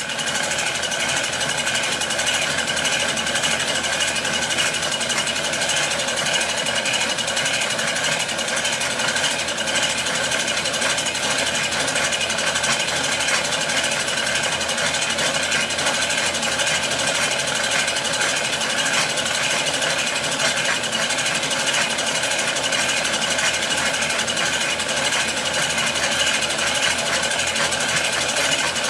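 Film projector running: a steady, fast mechanical clatter of the film being pulled through the gate, unchanging throughout.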